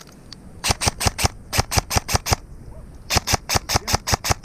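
Airsoft gun firing two quick strings of shots, about six a second, with a short pause between them.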